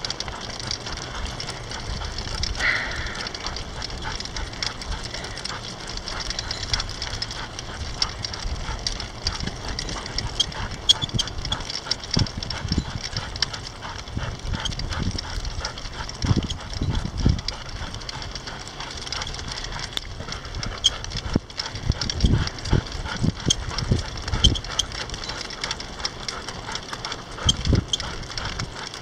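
Two Bouviers des Flandres trotting in harness, pulling a mini dog sulky along an asphalt road: a steady run of paw and claw ticks on the pavement over the sulky's wheels rolling. Now and then there are low rumbles of wind on the microphone.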